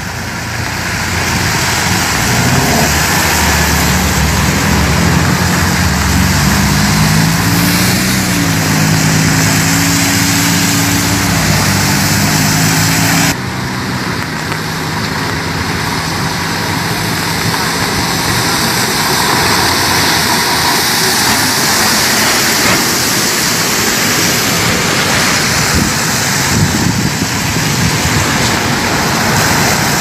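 Road traffic on a wet road: cars passing with tyres hissing on wet asphalt over a steady wash of wind and rain noise. A vehicle engine hums at low revs for the first dozen seconds, its pitch shifting a little, and the sound changes abruptly about 13 seconds in.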